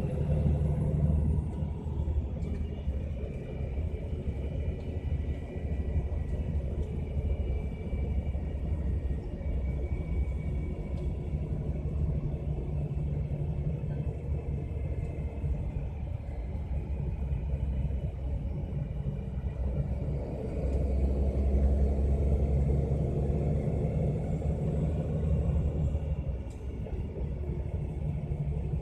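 MAN Lion's Coach running downhill on its retarder: a steady low rumble of the driveline with a faint whine above it in the first part. It grows louder for several seconds about two-thirds of the way through.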